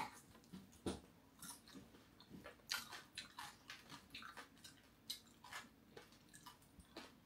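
Close-up chewing of crispy fried cá dứa catfish belly: a string of irregular crisp crunches, roughly two a second.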